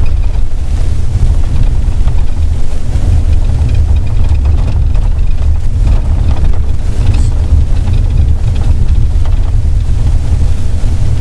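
Steady low rumble of a vehicle driving at road speed, with wind buffeting the microphone.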